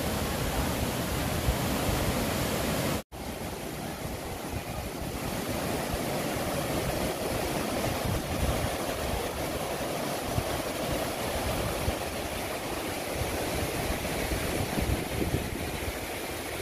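A shallow rocky river rushing over boulders in a steady wash of water noise. The sound cuts out for an instant about three seconds in, then the rushing water goes on.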